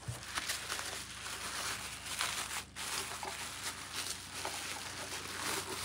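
Plastic bubble wrap crinkling and rustling in a steady run of small crackles as wrapped parts are handled and unwrapped.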